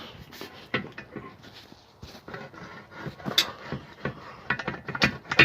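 Irregular clicks and knocks of hand tools and loosened parts being handled at the front of a car, with a quick run of clicks near the end.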